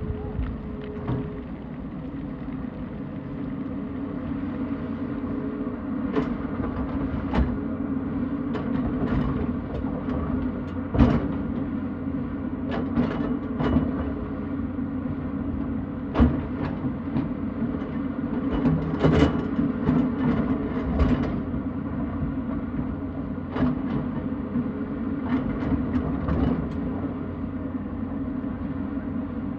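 Tata Hitachi hydraulic excavator's diesel engine running steadily under load, with irregular sharp knocks and clatters of the bucket working rock and stones. The loudest knocks come about eleven and sixteen seconds in.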